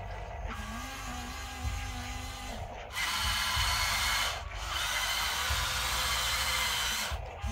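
Small electric motors of a Huina remote-control toy excavator whining as it drives and pivots on its plastic crawler tracks. The whine runs in three spells, with short breaks about 3 and 4.5 seconds in.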